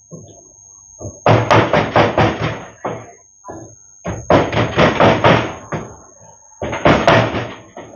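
Rapid knocking of a kitchen utensil: three runs of quick sharp strikes, about five a second.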